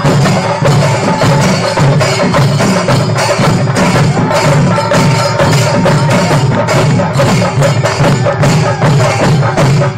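Shinkari melam: a troupe of chenda drums beaten fast with sticks, with ilathalam hand cymbals clashing along, in a dense, rapid, steady rhythm.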